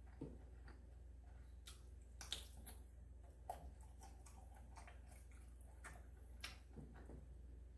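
Quiet eating: faint, scattered clicks and soft smacks of chewing, a few a second at most, over a low steady hum.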